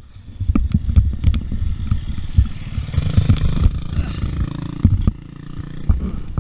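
Dirt bike engine running, louder for a couple of seconds in the middle, with irregular knocks and rattles as a stick is pulled out of the downed bike's rear chain and sprocket.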